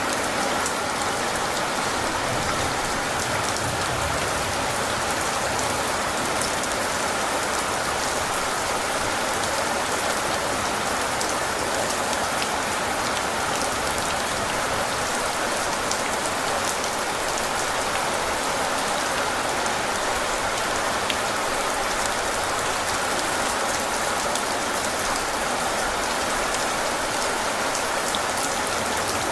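Steady heavy rain falling, an even hiss of drops with fine pattering, with no thunder heard.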